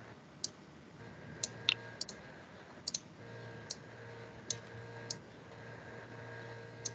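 Computer mouse clicking: about ten short, sharp clicks at uneven intervals while code blocks are dragged and dropped, over a faint steady hum.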